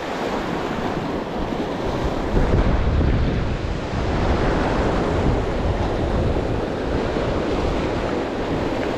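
Sea surf breaking and washing over shoreline rocks, with wind buffeting the microphone in a low rumble. The wash swells louder about two and a half seconds in.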